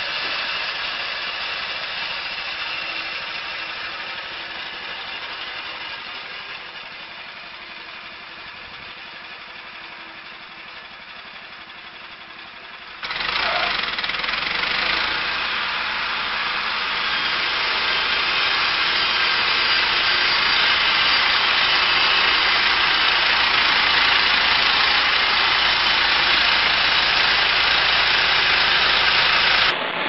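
Portable band sawmill's petrol engine running as its blade carriage travels along a log, with a hiss from the cut. The sound fades gradually, then about thirteen seconds in turns abruptly louder, with a deep hum, and stays loud.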